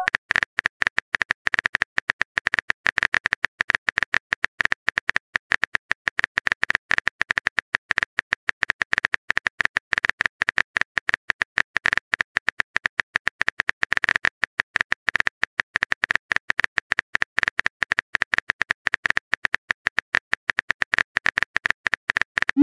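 Fast, irregular keyboard-typing clicks, the typing sound effect of a texting-story chat app, going on without a break.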